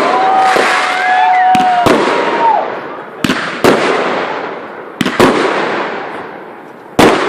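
Fireworks going off: about seven sharp bangs, mostly in close pairs, each followed by a crackling shower that fades away.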